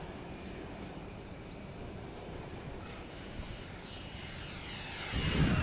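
Electric ducted fan of a FLYFLY BAe Hawk RC jet whining on a low pass: faint at first, then growing louder over the last two seconds and peaking as it passes close near the end.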